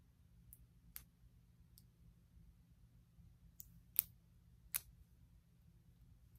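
A handful of short, sharp clicks of plastic press-on nails being handled against the fingernails, the loudest about four seconds in.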